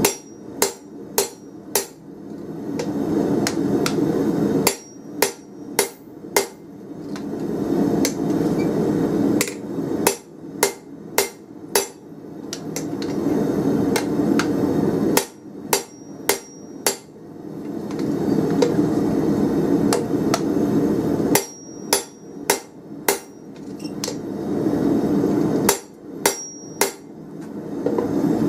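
Hand hammer striking the top die of a spring fuller on hot round steel bar, fullering it: sharp, ringing blows in quick groups of three to five with pauses of a few seconds between groups. A low steady hum fills the pauses.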